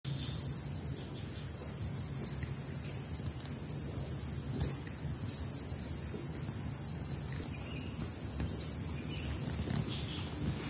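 Insects buzzing in a steady high chorus, with a second insect trilling in a few long stretches that stops about seven seconds in, over a low steady rumble.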